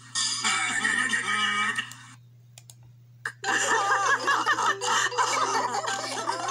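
Cartoon voices and laughter playing through laptop speakers, in two parts: a short burst of voices, then after a near-quiet gap and a sharp click, a group of cartoon characters laughing and talking. A steady low electrical hum runs underneath.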